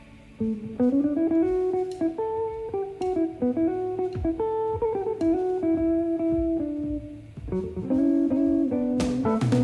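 Instrumental background music led by a plucked guitar melody, with drums coming in near the end.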